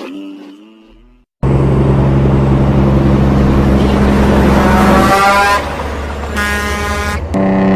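Semi trucks going by: loud diesel engine and road noise, with an air horn sounding in the second half.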